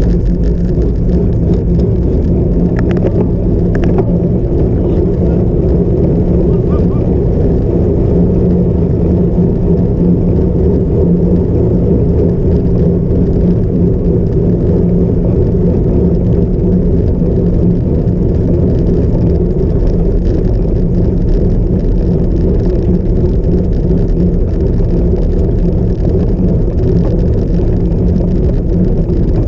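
Steady, loud low rumble of wind buffeting and tyre noise from a cyclocross bike being ridden over rough ground, with a constant low hum throughout.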